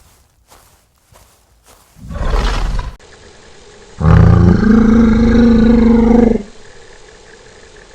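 Dinosaur roar sound effect: a short breathy burst about two seconds in, then a loud call held at a steady pitch for about two and a half seconds.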